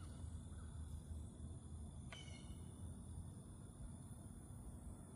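Quiet wooded outdoor ambience: a low steady rumble and a faint high insect hum, with one short, sharp bird call about two seconds in.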